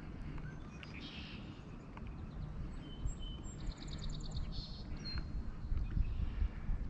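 Small birds chirping and whistling, with a quick trill of about seven notes a little past halfway, over a steady low rumble.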